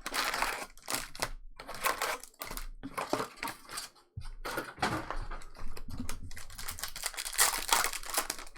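Chrome trading cards being handled at a table: a fast, irregular run of snaps, clicks and sliding rustles as the cards are thumbed through and flicked one by one.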